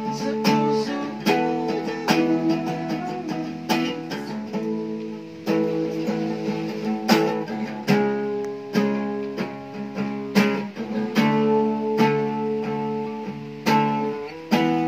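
Acoustic guitar strummed in chords, the chords ringing between strong strums that fall a little under once a second.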